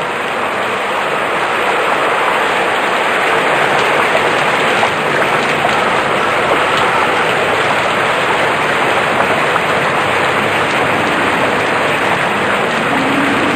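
Heavy typhoon rain falling steadily, a dense, even hiss. A low hum comes in near the end.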